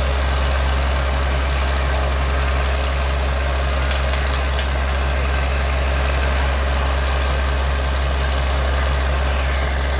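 Truck-mounted borewell drilling rig's diesel engine running steadily, a loud, even deep hum with a constant mechanical rush over it.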